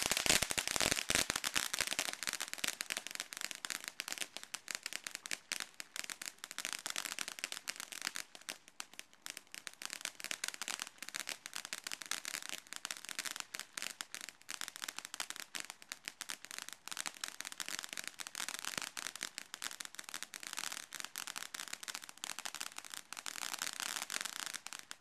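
A firework burning on the ground, crackling rapidly and continuously: a dense stream of sharp pops, loudest in the first couple of seconds, that stops suddenly near the end.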